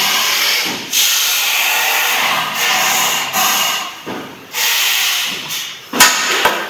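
A hissing noise that comes and goes in several stretches, then two sharp knocks about half a second apart near the end as a mallet strikes the steel folding-hinge fitting, seating it on the scooter's steering tube.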